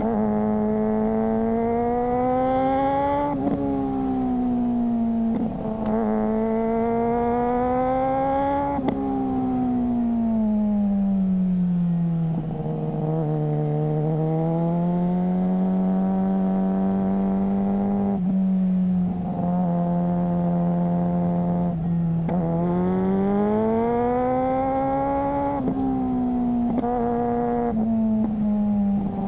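Suzuki GSR600's inline-four engine through a GPR Ghost aftermarket exhaust, riding and pulling up through the gears. The revs climb and drop abruptly at each quick upshift, about seven times. Around the middle they fall off slowly before the bike pulls again.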